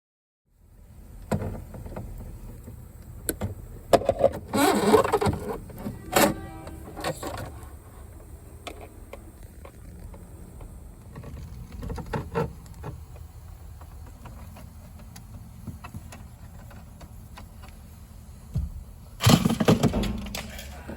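Work noises: scattered clicks and knocks, with louder rustling clatter about four seconds in and again near the end, over a low steady hum.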